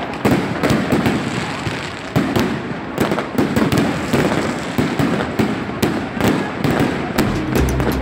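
Fireworks bursting overhead: a dense, continuous run of sharp cracks and bangs over a crackling hiss.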